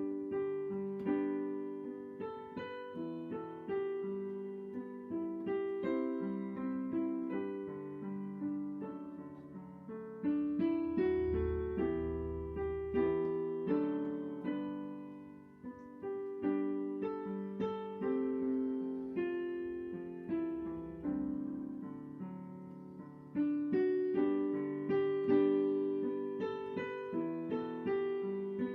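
Piano playing a slow piece in chords, each struck chord fading away; it starts suddenly, and a low bass note sounds in the middle.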